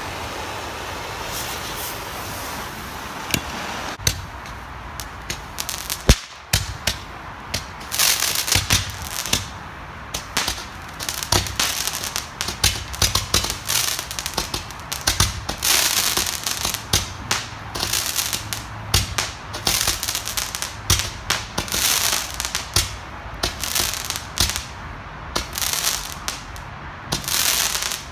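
A bundle of Roman candles lit together with a handheld blowtorch: a steady hiss for the first few seconds, then from about four seconds in the candles start firing. Quick, irregular pops and crackling follow, coming thick and fast from about eight seconds in.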